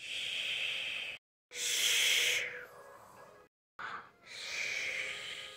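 A person making snoring noises for a sleeping character: three long, breathy, hissing snores with short silences between them.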